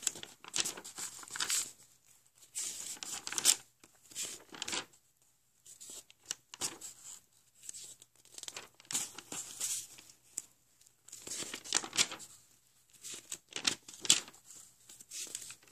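Paper rustling and crinkling as notebook pages of drawings are turned and handled, in a series of irregular rustles with short pauses between them.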